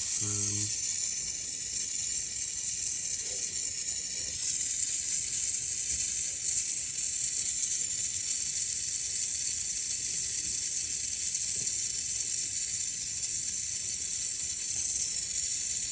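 Gas brazing torch flame hissing steadily while heating thin metal for brazing with silicone bronze rod.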